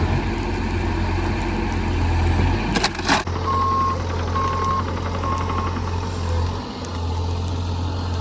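Excavator's diesel engine running steadily, with a sharp knock about three seconds in, followed by three short, evenly spaced warning beeps from its alarm.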